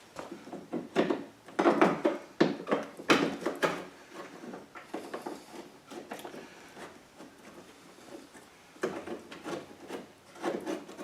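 Hands and tools working inside a truck door: irregular knocks, clicks and scraping of metal and plastic parts while the door handle is unbolted. It is busiest in the first few seconds, eases off in the middle, and picks up again near the end.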